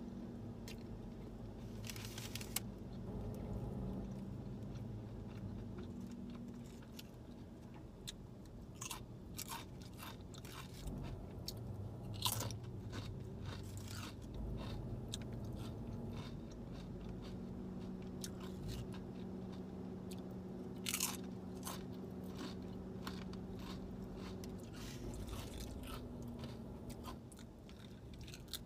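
Close-miked chewing of a sub sandwich and Sunchips multigrain chips, with sharp crunches every few seconds, over a low steady hum.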